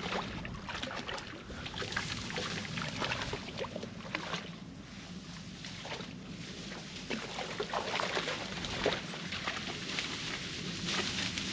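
Irregular rustling and crackling of dry grass and brush, getting busier near the end.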